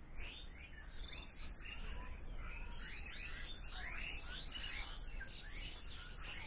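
Many small birds chirping at once: a dense chorus of short, overlapping chirps over a low steady rumble.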